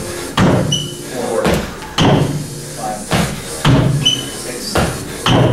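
Feet landing hard on a wooden plyo box and back on the gym floor during repeated box jumps: a series of heavy thuds about one a second. Twice there is a brief high squeak.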